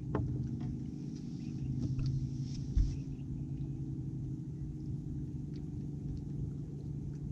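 A boat motor running steadily with a low, even hum. A single low thump about three seconds in, and a few faint clicks.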